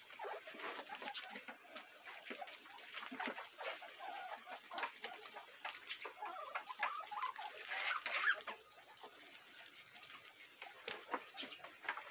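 A pen of guinea pigs rustling and feeding in grass and hay, with many small clicks and scattered soft animal calls; one louder call comes about eight seconds in.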